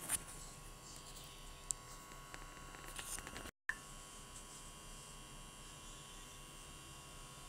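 Faint steady hum and hiss, with a few soft clicks in the first three seconds. The sound cuts out completely for a moment about three and a half seconds in.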